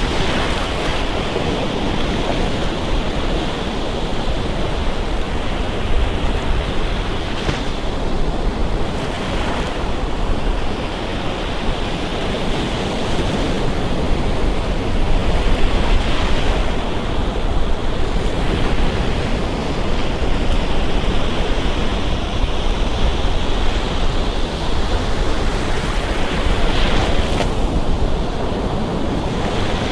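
Gulf of Mexico surf washing up on a sandy beach in a steady, continuous wash, with wind on the microphone.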